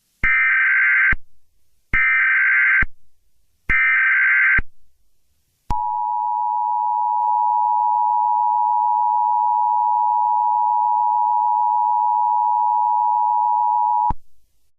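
Emergency Alert System tones: three bursts of about a second each of buzzing SAME header data, then the steady two-tone EAS attention signal (853 and 960 Hz together), held for about eight seconds and cut off abruptly.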